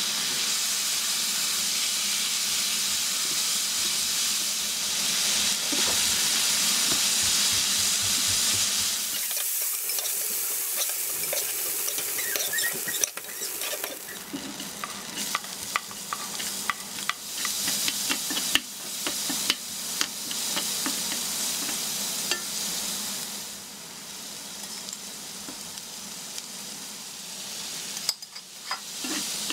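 Chopped beef and garlic sizzling in oil in a nonstick frying pan, a steady hiss while a spatula stirs. About nine seconds in, the sizzle drops quieter and is broken by frequent clicks and scrapes of a utensil stirring against the pan.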